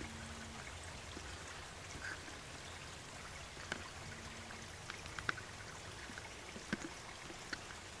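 Small forest stream trickling steadily, with a few faint sharp clicks in the second half.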